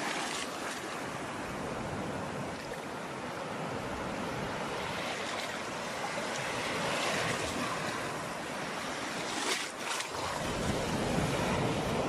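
Ocean surf washing on a beach, a steady rush that swells and eases. About ten seconds in it briefly drops out, then returns with a deeper low rumble.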